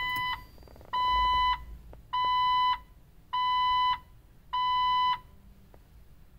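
Electronic beeps at the same pitch, each a little over half a second long and about a second apart, five in all, stopping about five seconds in.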